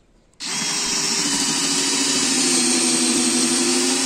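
DeWalt cordless drill/driver in its low speed (speed 1), running an 8 mm high-speed-steel bit into very hard, dry raulí wood. It starts about half a second in and then runs steadily.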